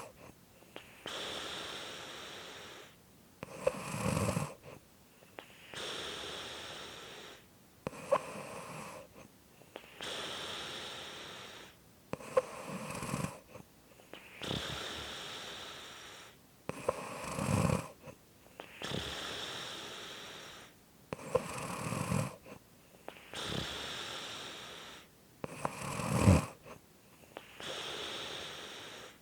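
Slow, regular snoring: six short, rough snores, one about every four and a half seconds, each followed by a longer, airy breath.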